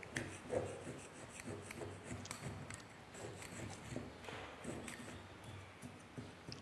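Metal spatula scraping dried sodium chloride crystals off the inside of a porcelain evaporating basin: a run of short, irregular scratching strokes of metal on glazed porcelain.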